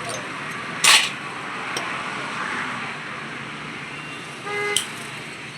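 Street traffic noise with a short, loud hissing burst about a second in and a brief vehicle horn toot near the end.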